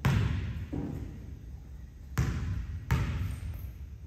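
A basketball bouncing on a hardwood gym floor: four separate bounces in two pairs, one at the start and another under a second later, then two more a bit after two seconds in. Each bounce echoes briefly in the gym.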